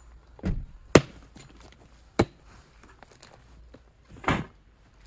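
Hatchet chopping into a log to split firewood: four irregular strikes, the sharpest about a second in, and a duller, longer thud near the end.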